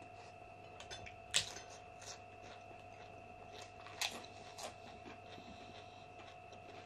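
Close-up eating sounds of a meal of rice and pork-trotter pickle: quiet chewing with a few short sharp crunches or clicks, the loudest about a second and a half in and again around four seconds in. A faint steady hum runs underneath.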